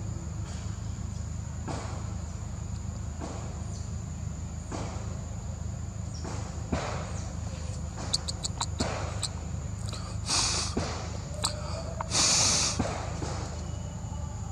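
Forest ambience: a steady high insect drone over a low hum, with scattered clicks and knocks. A quick run of clicks comes about eight seconds in, then two short hissing bursts about ten and twelve seconds in, the second the loudest.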